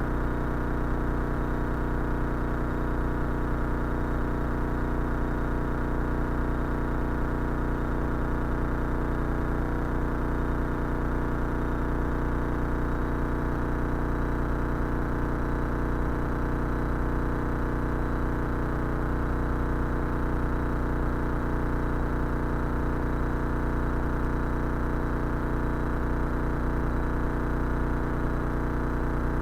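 Cessna 172 Skyhawk's piston engine and propeller droning steadily in cruise descent, heard from inside the cockpit.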